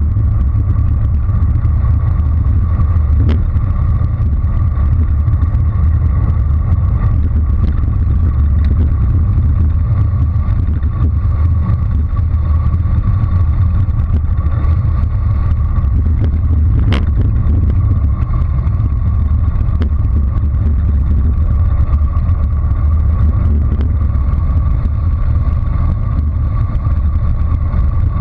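Wind rushing over a GoPro microphone during a fast bicycle descent: a loud, steady low rumble. Sharp knocks come about 3 seconds in and, louder, about 17 seconds in.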